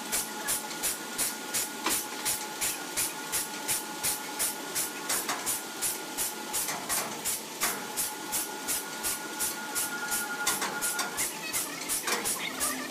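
Sawmill machinery running with an even, fast rhythmic clatter of about three beats a second and a faint steady whine underneath.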